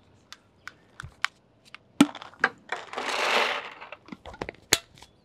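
Plastic clicks and snaps from handling the gear, with a sharp snap about two seconds in, then a second-long rattling rush of paintballs poured from a pod into the marker's hopper, about three seconds in.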